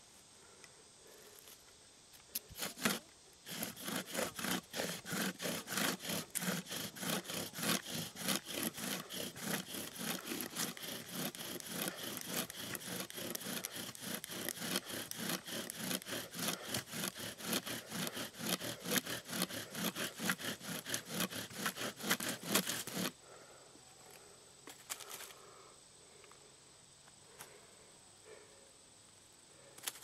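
Bow drill worked for a friction fire: the wooden spindle rubs and grinds in the hearth board with each rapid back-and-forth stroke of the bow, several strokes a second. It starts after a couple of tentative strokes about three seconds in and stops abruptly about two-thirds of the way through, once the drilling has made a smouldering coal.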